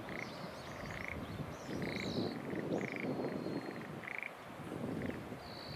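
Frogs in a flooded rice paddy calling in short rattling croaks, about one a second, with birds chirping and whistling above them over a low, uneven rushing noise.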